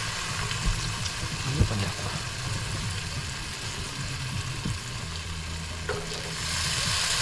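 Pancakes sizzling in a frying pan, with a few light knocks early on; the sizzle grows louder near the end.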